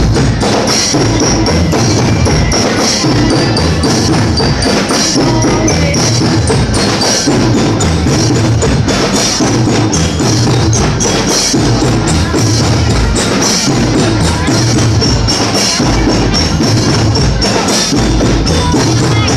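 Music with busy percussion, many quick strikes over a moving bass line, running at an even level.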